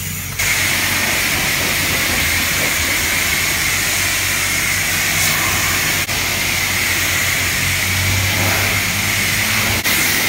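Self-serve car wash high-pressure wand spraying rinse water onto a car's body: a loud, steady hiss of the water jet with a low hum beneath it, starting about half a second in.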